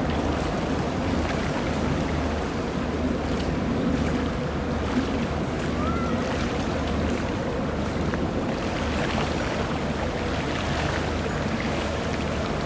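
A boat's engines run with a steady low rumble under a constant wash of water and wind noise.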